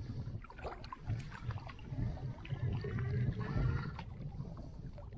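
Spinning reel being cranked to bring in a hooked crappie, a faint whirring from its gears with small clicks, over wind rumbling on the microphone.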